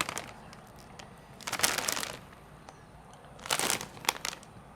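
A snack bag of popcorn crinkling as it is handled, in two short rustling spells, one about a second and a half in and one near the end.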